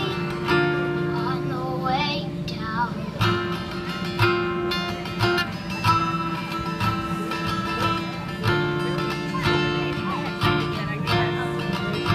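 Acoustic guitar strummed in a steady rhythm through a run of chord changes, with a young girl's singing voice coming in briefly in places.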